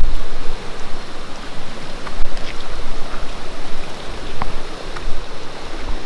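Steady rush of a rocky mountain stream, with wind buffeting the microphone in low rumbles and a few sharp clicks of footsteps on loose stones.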